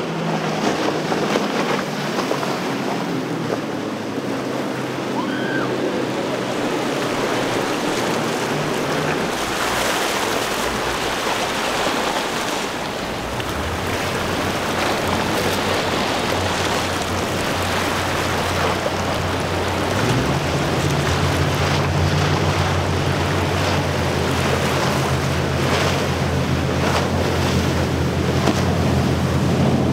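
Powerboats running at speed through waves, with spray and water rushing over the engines: first a Midnight Express 43' on quad Mercury 400 outboards, then a Fountain powerboat. A low engine drone comes in about halfway through and grows louder and higher a few seconds later.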